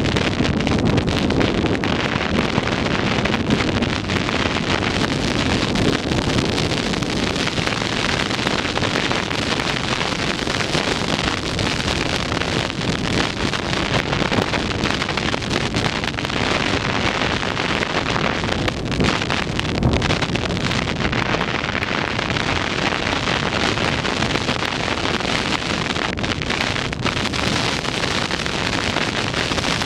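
Wind rushing over the microphone of a camera filmed from a moving car, with steady road noise underneath.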